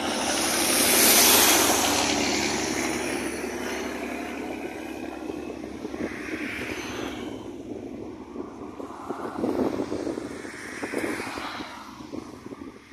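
Highway traffic passing close by: a truck goes past in the first couple of seconds with a loud rush of tyre and wind noise that fades away, followed by a few smaller swells as other vehicles pass.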